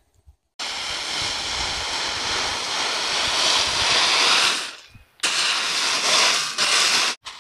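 Rake dragged through coffee cherries spread to dry on tarps, giving a dry, rattling scrape. There are two long strokes with a short pause about five seconds in.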